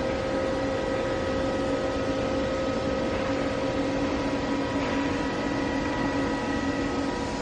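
Fanuc Robodrill CNC drill-and-tap machining center running steadily: an even mechanical hum and whine made of several fixed tones over a hiss, with no change in speed.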